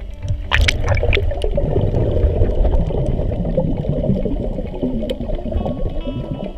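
Underwater water churn and gurgling on an underwater camera as the snorkeler dives toward the seabed, with a short splash about half a second in.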